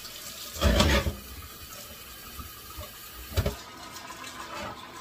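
Kitchen faucet running, its stream filling a glass vase in a stainless-steel sink, with two loud knocks about a second in and about three and a half seconds in.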